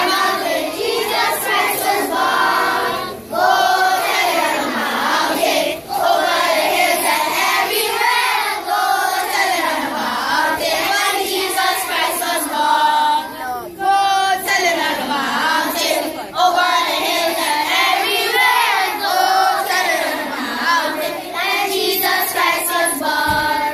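A group of schoolchildren singing a Christmas carol together, many voices in unison, with short breaks between phrases.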